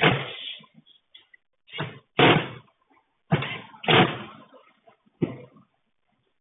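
About six heavy knocks or bangs at irregular intervals, each with a short fading tail, close to the microphone.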